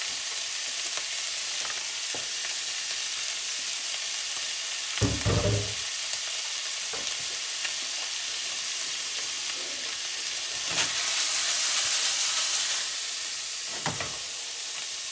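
Crumbled ground beef sizzling in a nonstick skillet: a steady frying hiss as the drained meat browns. There is a short low thump about five seconds in, and the sizzle swells louder for a couple of seconds past the two-thirds mark.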